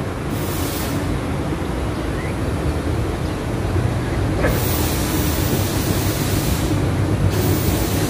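A steady low rumbling noise, with a higher hiss that comes in briefly near the start and again for about three seconds from the middle on.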